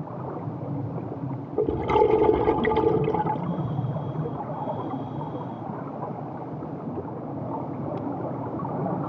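Underwater sound of a scuba diver: a steady rush of water, with a burst of bubbling from the diver's exhaled regulator bubbles from about one and a half to three and a half seconds in.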